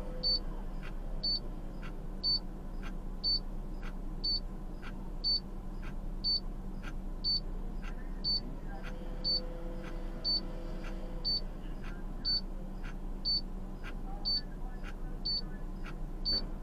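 A short, high-pitched electronic beep repeating about once a second, sometimes twice, over a steady low hum.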